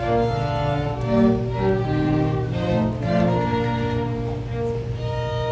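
Violin and cello playing a slow string piece with long held notes.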